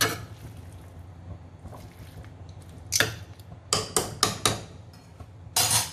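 Steel slotted spoon stirring spiced jackfruit pieces in a pressure pan, with soft squishing of the pieces and a run of sharp clinks and scrapes of the spoon against the pan, clustered about three to four and a half seconds in and again near the end.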